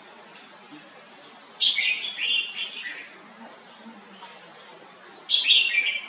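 Red-whiskered bulbul singing: two short song phrases, one about a second and a half in and one near the end.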